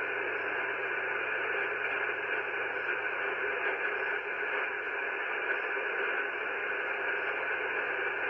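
Shortwave radio receiver hiss and static, steady and even, held to a narrow band like a receiver's audio filter, after the pirate station's sign-off. A faint low hum runs under it.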